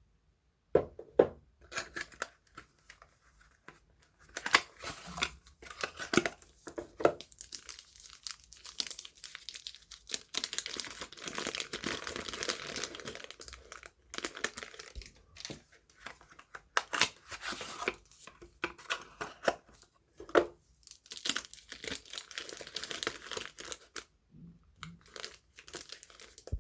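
Soap packaging being torn open and crinkled by hand, with irregular sharp crackles and longer stretches of continuous rustling and tearing.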